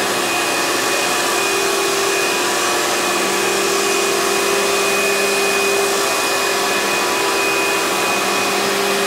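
Kärcher K3 Power Control electric pressure washer running and spraying water through its floor-cleaner attachment: a steady hum with a higher whine over the hiss of the spray.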